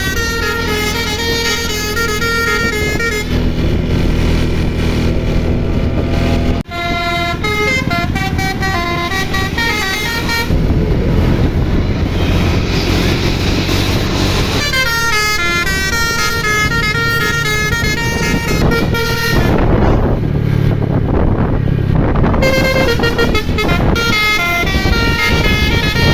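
Telolet musical bus horn playing a fast melody, its notes stepping up and down every fraction of a second over a running engine. It breaks off for an instant about six and a half seconds in, and for a few seconds just after ten seconds in the tune gives way mostly to a hissing noise.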